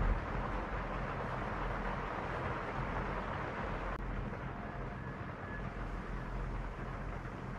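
Steady room tone: an even hiss over a low hum, with a brief tick at the start and the hiss turning slightly duller about four seconds in.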